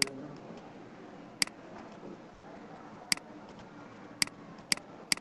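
Computer mouse clicking: six sharp single clicks at irregular intervals, roughly a second apart, two of them close together near the end.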